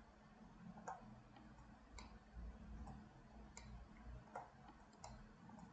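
Faint computer mouse clicks, about eight irregularly spaced, over a faint steady low hum.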